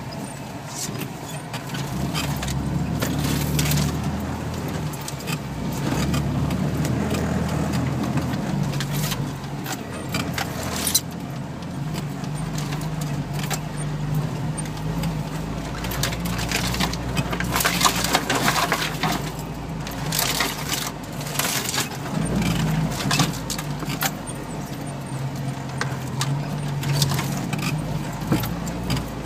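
Vehicle engine running inside the cab as it drives a rough, snowy track, its low note rising and falling with the throttle. Loose rattles and knocks from the body and interior as it jolts over bumps.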